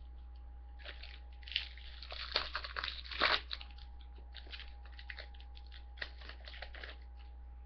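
A trading-card pack's foil wrapper being torn open and crinkled, loudest between about one and a half and three and a half seconds in, followed by lighter rustling and ticks of the cards being handled.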